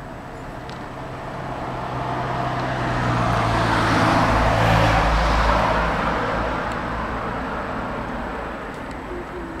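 A car passing by: a steady road noise that slowly swells to a peak about halfway through and fades away again.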